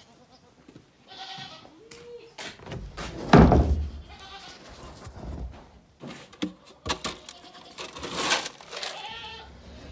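Goats bleating several times, with a loud thump about three seconds in and scattered knocks.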